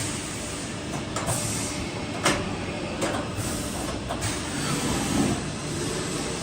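Hurco VMX42i CNC vertical machining centre running: a steady mechanical hiss and hum, broken by a few sharp clicks.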